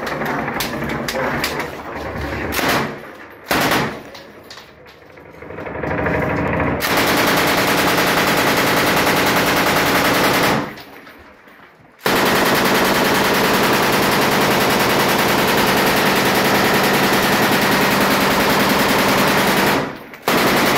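M240 belt-fed 7.62 mm machine gun firing from inside a room: two short bursts about three seconds in, then long sustained bursts of about four seconds and about eight seconds with a pause of over a second between them, and a final short burst near the end.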